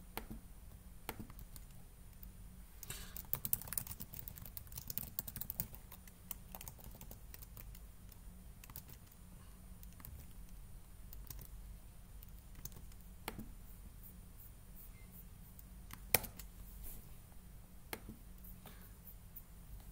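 Typing on a computer keyboard: a quick run of keystrokes a few seconds in, then a few single clicks spaced seconds apart, the sharpest one near the end.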